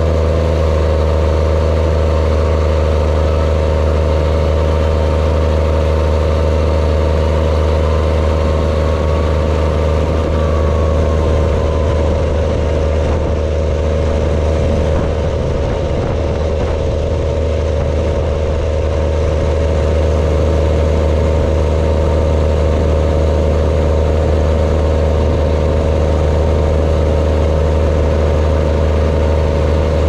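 New Holland T7030 tractor's six-cylinder diesel engine running steadily under way on the road, heard from beside its vertical exhaust stack.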